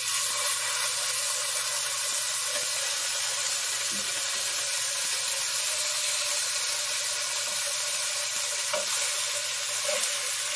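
Marinated chicken and sliced red onions sizzling steadily in a hot sauté pan just after going in, frying in the oil of their marinade.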